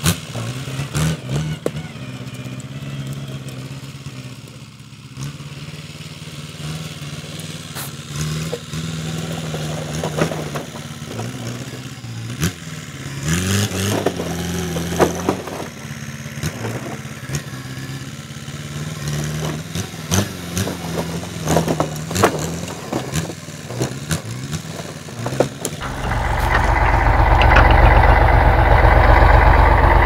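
Wheeled tractor's diesel engine running, revving up about halfway through, with scattered knocks. Near the end a much louder heavy engine takes over close by.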